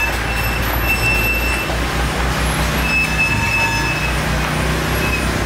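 Street traffic noise with an engine running close by; its low steady hum comes in about two seconds in.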